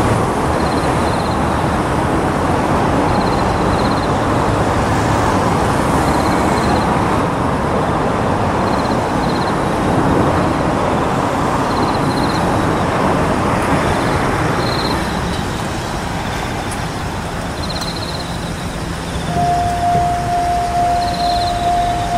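Steady trackside rumble as a JR Kyushu 817 series electric train approaches the level crossing. About 19 seconds in, the train's horn starts: a single steady tone that keeps sounding.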